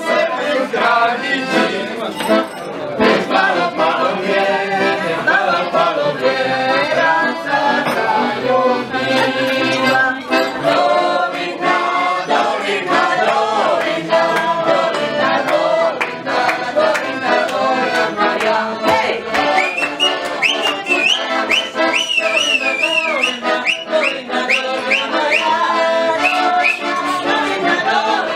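Accordion playing a lively folk tune with men's voices singing along. Past the middle, short high upward-sliding notes repeat quickly over the music.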